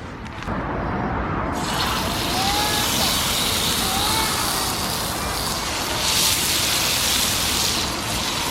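Food sizzling loudly on a hot, oiled cast-iron griddle over a wood fire, a steady hiss that starts suddenly about one and a half seconds in.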